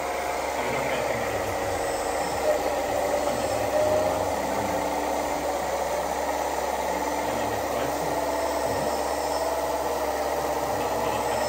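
Radio-controlled model trucks and construction machines running: a steady mechanical whir of small motors and gears with wavering whines and light rattling. A short knock about two and a half seconds in.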